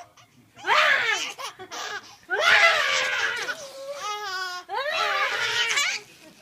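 A baby laughing in several short bursts, with a high squeal a little past the middle.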